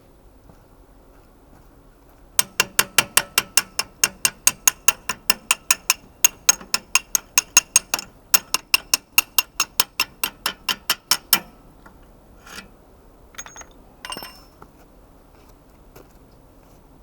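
Ratchet wrench clicking in a steady run of about four sharp metallic clicks a second, with one brief break, for about nine seconds, followed by a few faint metal clinks.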